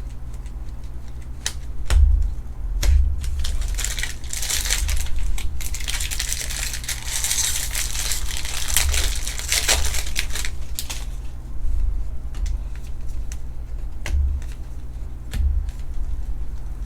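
Trading card pack's foil wrapper crinkling as it is handled and torn open, for several seconds in the middle, with scattered clicks and thumps of cards and hands on the table.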